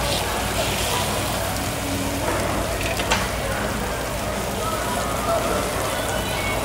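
Beef and pork slices sizzling on a stainless-steel tabletop barbecue grill: a steady, even hiss. A sharp metal clink about three seconds in, from the steel tongs touching the grill.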